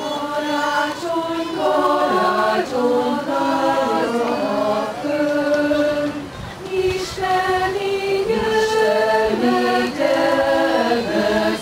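A group of voices singing together in a slow song, holding each note and moving from note to note in steps.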